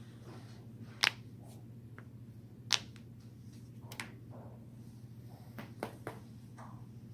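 A person's joints cracking: a series of sharp pops, the loudest about a second in, two more near three and four seconds, then a quick run of smaller pops around six seconds, over a steady low hum.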